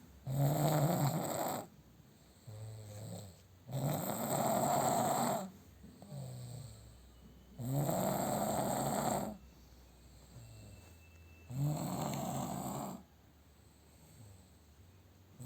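Someone asleep snoring in a regular rhythm: four loud rattling snores about four seconds apart, with a softer breath between each.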